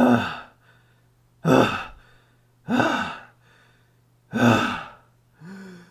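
A man's voice heaving four long, sighing breaths, about one every second and a half, each falling in pitch, then a short low hum near the end.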